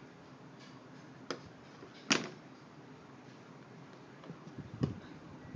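A few sharp clicks and knocks of spoons against a yoghurt cup as a small child eats with two spoons, the loudest about two seconds in.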